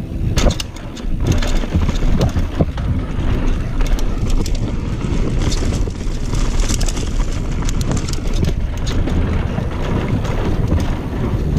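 Mountain bike riding down a dirt singletrack: wind rushes over the head-mounted camera's microphone over the rumble of the tyres, with frequent clicks and rattles from the bike over bumps.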